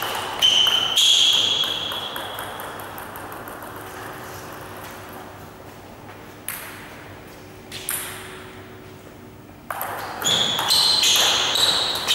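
Table tennis play: the ball clicking sharply off bats and table, with high squeaks of shoes on the sports-hall floor and a ringing echo in the hall. Play stops about a second in, a few lone ball bounces follow, and quick clicks and squeaks of a new rally start near the end.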